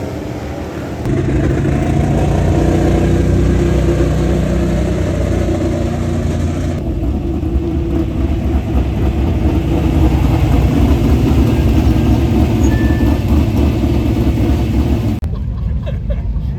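Dirt late model race car engine running hard at a fairly steady speed, loud and close, getting louder about a second in. The sound changes abruptly about seven seconds in and again near the end.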